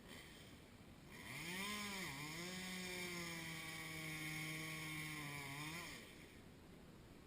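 Chainsaw engine revving up about a second in, dipping in pitch, then running at a steady pitch for about four seconds before dropping off near six seconds.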